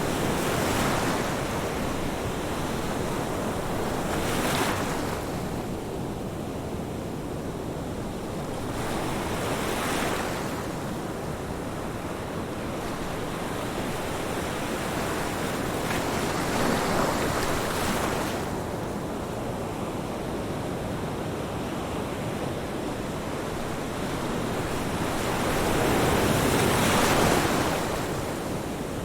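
Ocean surf: waves breaking and washing ashore in slow swells of hiss every few seconds, about five times, with the loudest one near the end.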